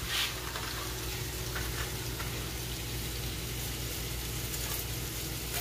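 Seasoned chicken tenders sizzling steadily as they pan-sear in oil in a frying pan, over a low steady hum.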